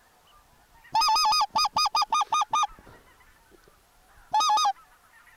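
Hand-blown Canada goose call. It gives a fast string of about ten short, sharply breaking honks and clucks over nearly two seconds, then single honks twice near the end. The calling is meant to turn back geese that have just flown off.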